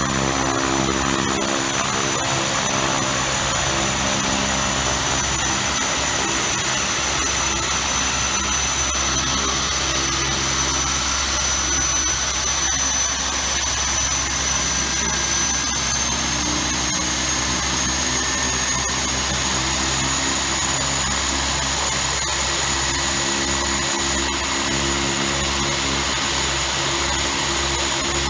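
Twin Pratt & Whitney Canada PT6A-28 turboprop engines on a Piper Cheyenne II running on the ground with their propellers turning: a steady high turbine whine over a low propeller drone. The whine edges up a little in pitch a bit past the middle. This is a ground run of the freshly installed engines, one with its cowling off.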